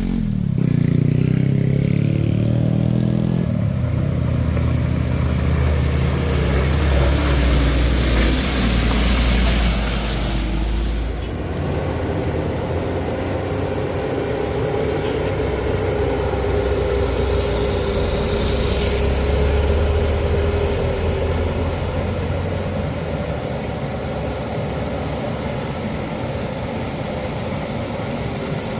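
Diesel engine of a heavy vehicle running under load on a steep climb. Its pitch shifts in the first few seconds, and a deep rumble eases off about eleven seconds in. A steady whine runs for several seconds in the middle.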